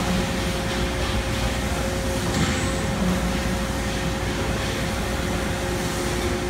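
CNC press brake running with a steady mechanical hum and a faint whine, with two short louder swells near the start and about two and a half seconds in as sheet-metal parts are worked.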